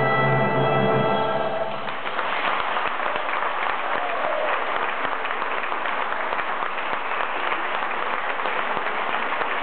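A held final chord of the stage musical's music ends about two seconds in, and an audience takes over applauding steadily.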